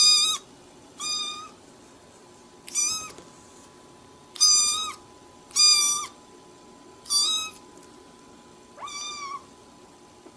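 Domestic cat meowing repeatedly: seven short meows, each level in pitch, about one every second and a half.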